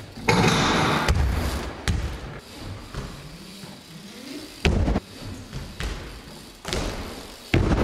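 BMX bike tricks on skatepark ramps and rails: a rough scraping slide in the first second, then a string of hard thuds as the tyres land and hit the ramps, with tyre rolling noise between.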